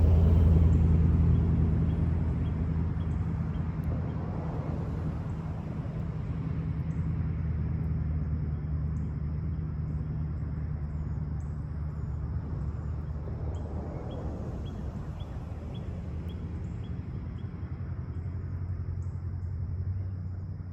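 Steady low hum of a vehicle engine, loudest at the start and easing off over the first few seconds, with faint short high ticks above it.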